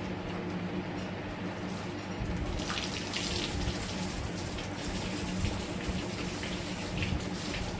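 Water pouring and splashing, typical of storm rain coming down hard, over a steady low hum. The rush of water grows much louder about two and a half seconds in.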